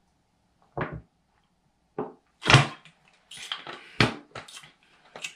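Gulps and mouth sounds from drinking out of a plastic bottle, mixed with a few short knocks and handling noises as the bottle is lowered; the loudest thump comes about two and a half seconds in.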